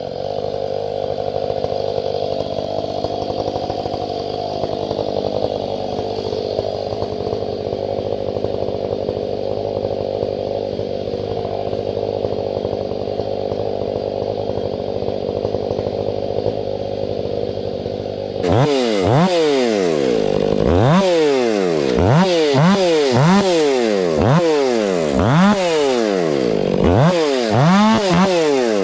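Two-stroke chainsaw engine running steadily at low speed. About two-thirds of the way through it gets louder and revs up and down over and over, roughly once a second.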